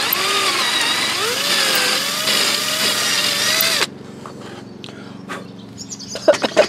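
Workzone 12 V cordless drill boring a dowel hole through a dowelling jig into a wooden board, its motor pitch wavering under load. It stops about four seconds in, followed by a few clicks and knocks as the drill is set down.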